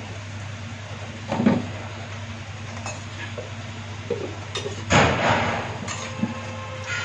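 Metal kitchen utensils clattering and clinking against a kadhai and dishes while puris are fried, with two louder clatters about a second and a half and five seconds in. A steady low hum runs underneath.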